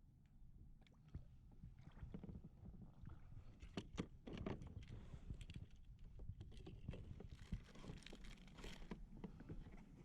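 Faint water sloshing and scattered small knocks against a plastic kayak hull, with a low rumble underneath and two brief patches of soft splashing.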